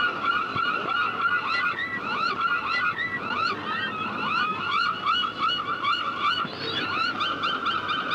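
A dense chorus of many small animals calling at once: rapid, overlapping high chirps that glide in pitch and repeat several times a second.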